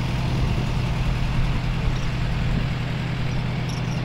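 Boat engine running steadily at an even pitch, a constant low hum.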